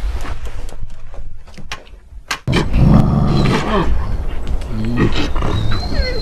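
Wolves growling. The low growl cuts in suddenly about two and a half seconds in, after a quiet stretch with a few clicks, and a second growl comes about five seconds in. A thin high whistle runs under it near the end.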